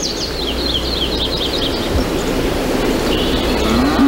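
Birds chirping in quick runs of short descending notes over a steady outdoor hiss. Near the end a cow starts to moo, a low call that rises and then holds; it is the loudest sound.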